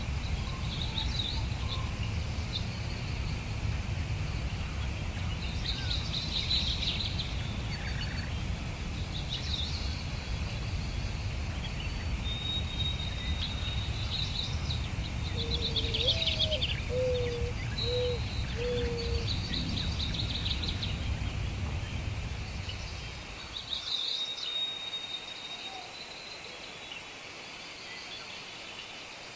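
Songbirds chirping and trilling in a high, busy chorus, over a low steady rumble that drops away about four-fifths of the way through. Near the middle a short run of four lower notes sounds.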